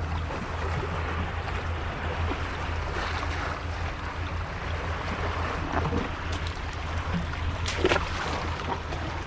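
Sea waves washing around concrete tetrapods, with a steady low rumble underneath; one brief sharp knock or splash near the end.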